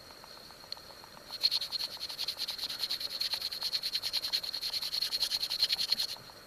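A rapid pulsed insect trill, about ten pulses a second, starting about a second in and stopping abruptly near the end, over a faint steady high-pitched insect drone.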